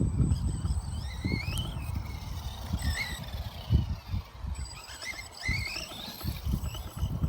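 A JLB Cheetah RC buggy's electric motor whines up in pitch and drops back several times as it is throttled in short bursts. Under it runs an uneven low rumble with thumps.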